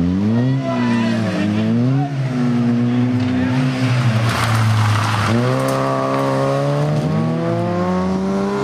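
Rally car engine revving hard, its pitch climbing and falling back with each gear change. About four seconds in a harsh hiss of tyre noise, then the engine pulls up steadily again.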